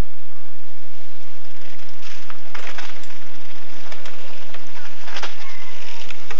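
Mountain bikes rattling past on a rough dirt track: a run of sharp metallic clicks and clinks from their chains and frames, starting about two seconds in, over a steady background hiss.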